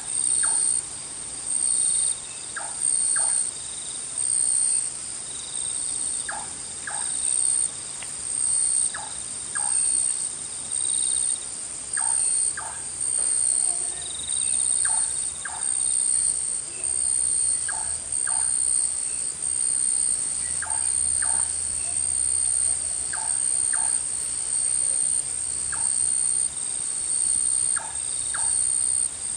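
Jungle insect chorus: a high, pulsing trill that swells about once a second. Through it, a short two-note call from another animal repeats every two to three seconds.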